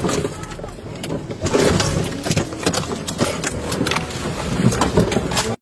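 Car engines running while vehicles jostle against each other, with a series of knocks and bangs, heard from inside a police cruiser, mixed with raised voices.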